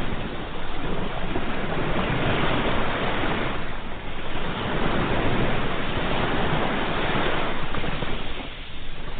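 Ocean waves washing onto a shore: a continuous rushing surf that swells and eases, dipping briefly about four seconds in and again near the end.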